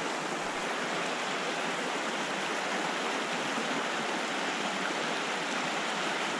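Creek water rushing over a riffle, a steady even rush.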